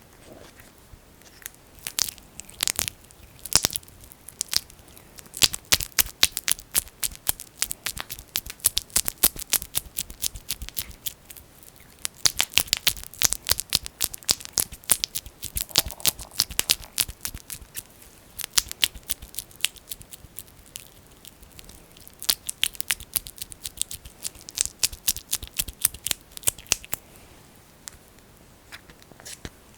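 Fingers working thick, sticky Vaseline petroleum jelly right at the microphone as an ear massage, giving rapid sticky clicks and crackles. They come in spells of several seconds with short pauses between.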